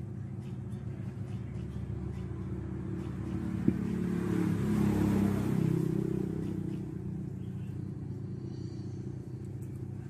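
A vehicle passing by, swelling up and fading away over about four seconds, over a steady low hum. A single sharp click comes just before the swell peaks.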